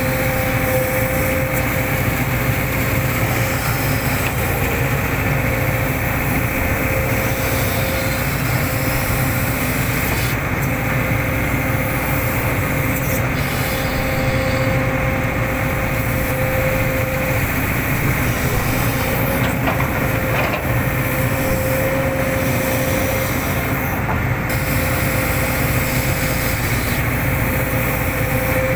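Hitachi excavator's diesel engine and hydraulics running steadily as it works, with a steady whine that comes and goes.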